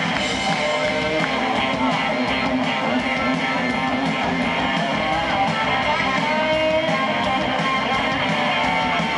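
Live rock band playing a soul-rock number, with strummed electric guitar up front over drums, bass and organ, heard from the stands of an open-air stadium.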